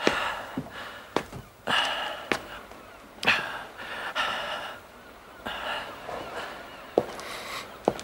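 A man breathing heavily in gasps, several short breaths in a row, with a few sharp knocks in between.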